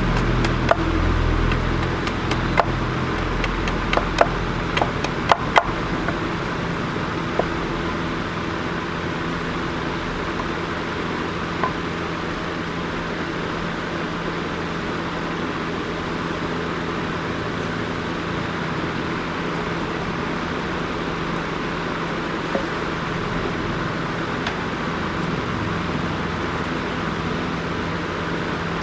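A workshop machine's motor runs steadily with a constant hum. Several sharp knocks or taps come in the first few seconds, with only one or two later.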